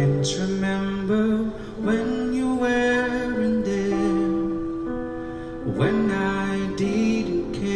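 A person singing a slow ballad into a handheld microphone over an instrumental backing track, holding long notes.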